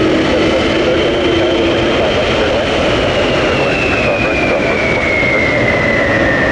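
Jet airliner passing close with a loud, steady engine rush. Its engine whine falls steadily in pitch from about halfway through as the aircraft goes by.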